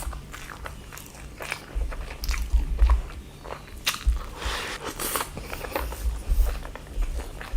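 Close-up mouth sounds of a person eating: biting and chewing food, with many short, sharp clicks and a few crunchy bites.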